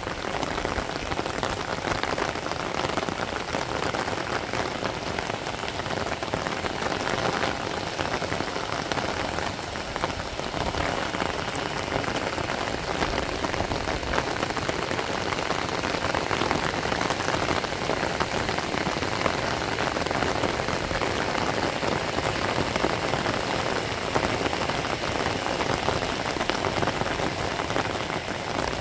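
Steady rain falling: a dense, even hiss made of many small drop hits that holds without pause.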